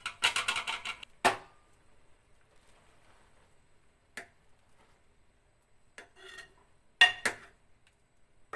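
Metal ladle scraping and knocking against the inside of a pot of thickening milk, stirred and scraped off the walls so it doesn't stick and burn. A quick run of scrapes comes first, then a sharp knock about a second in, and a few separate clinks later, two close together near the end.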